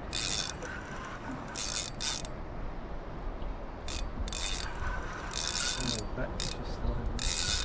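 Fishing reel's drag buzzing in several short bursts as a hooked Spanish mackerel pulls line against it.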